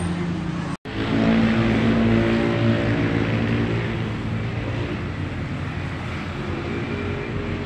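Steady engine hum with a few held low tones over general street noise. The audio drops out for an instant about a second in.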